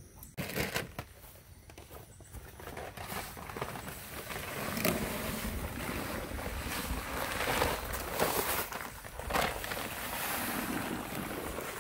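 Dry Quikrete concrete mix pouring out of a paper bag into a fence-post hole, a steady gritty rushing hiss that swells about three seconds in and keeps surging unevenly as the bag is shaken out.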